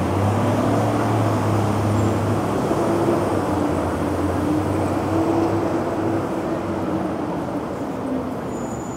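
City street traffic with a vehicle engine's steady low drone up close, fading out about six seconds in.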